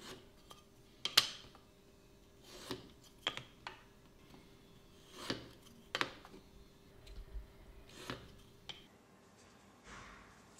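Woodworking hand tools and small pieces of wood being handled on a wooden workbench: a scattered series of sharp knocks and taps, the loudest about a second in, with a few short scraping strokes.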